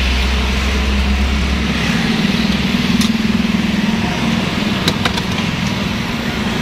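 Motorbike engine running close by amid street traffic, a steady hum at first, then a pulsing drone. A few light clicks come about three and five seconds in.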